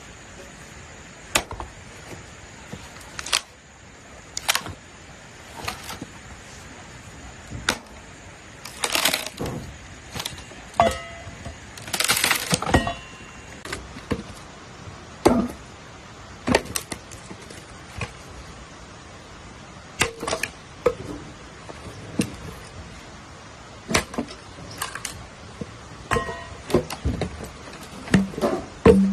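Dry sticks and branches snapping and knocking as firewood is broken and gathered: separate sharp cracks every second or two, with a quick flurry of snapping about nine and twelve seconds in.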